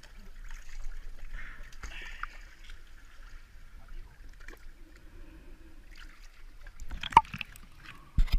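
Seawater sloshing and dripping against an inflatable boat's hull as a large fish is hauled up over the side tube, with a few sharp knocks near the end.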